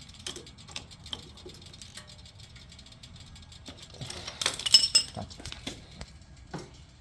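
Light metallic clicks and clinks of hand tools and metal parts being handled, with a louder cluster of ringing metal clinks about four to five seconds in.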